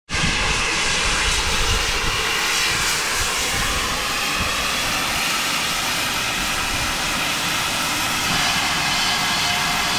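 Steam locomotive 7812 Erlestoke Manor, a GWR Manor class 4-6-0, moving off slowly: a loud, steady hissing roar of steam over a low rumble from the locomotive and tender.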